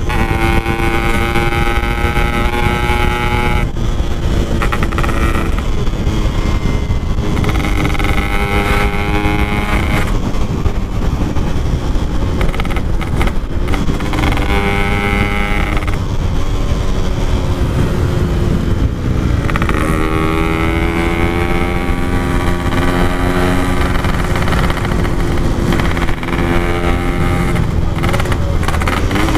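Two-stroke motorcycle engine with an aftermarket exhaust, a Yamaha RX-King, being ridden hard. Its pitch climbs under throttle, then breaks and drops every few seconds as the rider works the throttle and gears on a winding road.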